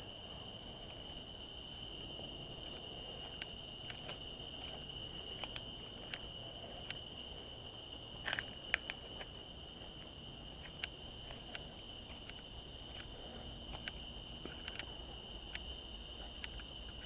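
Crickets chirring steadily outdoors at night, a continuous high-pitched chorus at two pitches, with scattered faint clicks, a few together about eight seconds in.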